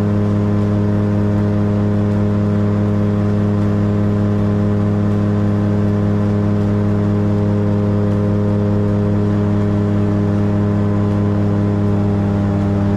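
Engine and propeller of a small light aircraft running steadily at cruise power, heard from inside the cockpit, with one constant pitch and no change in power.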